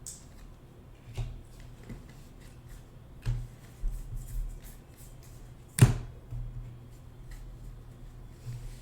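Trading cards and packs being handled at a table: scattered soft taps and rustles, with one sharper click about six seconds in, over a steady low hum.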